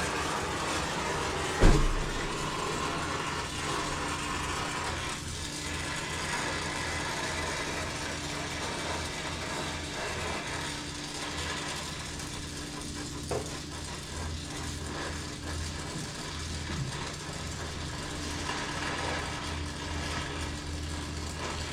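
A motor-driven machine runs with a steady low hum. There is one sharp knock about two seconds in and a lighter click near the middle.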